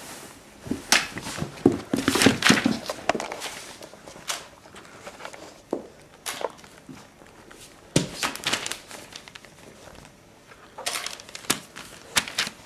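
Weimaraner puppy moving about and playing: irregular scuffling, rustling and light knocks. The sounds are busiest about a second in and again near the end.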